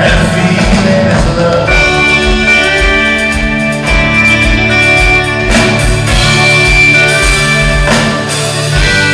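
Live band playing an instrumental passage, with electric guitar over bass and a steady kick-drum beat.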